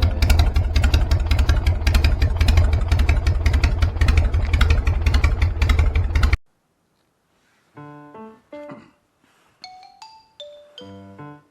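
Loud background music with heavy bass and a fast, driving pulse that cuts off abruptly about six seconds in, followed by sparse, quiet piano- or marimba-like notes.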